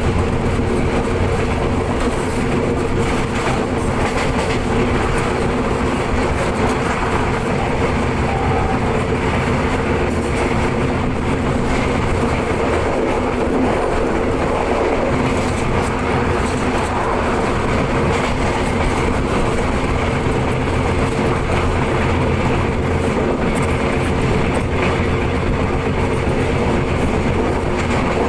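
Commuter train running along the track, a steady rumble with a low hum that holds even throughout.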